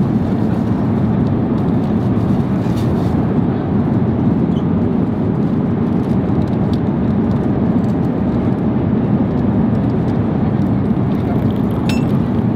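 Steady low rushing drone of an Airbus A350-900ULR airliner cabin in flight. A few faint clicks come near the end as cola is poured from a can into a plastic cup.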